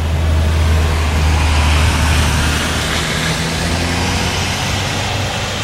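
Road traffic passing on a wet road: a low engine rumble under the hiss of tyres on wet pavement. The hiss swells about two seconds in and then eases a little.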